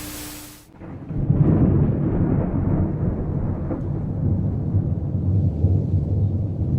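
A brief burst of static hiss with a low hum cuts off, then a long, low rolling rumble of thunder starts about a second in and keeps going.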